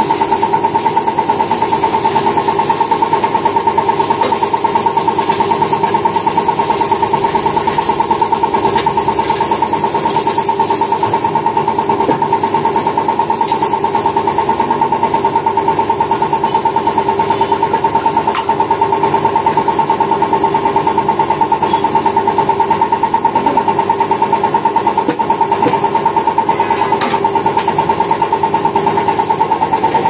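A machine running steadily: a continuous drone holding two hum pitches, pulsing fast and evenly.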